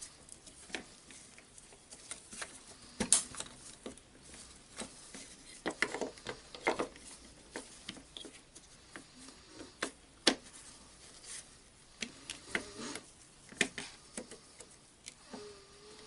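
Irregular light clicks, taps and rustles of hands fitting wires and a trigger switch into the opened plastic housing of a Makita DDF343 cordless drill, with a few sharper knocks.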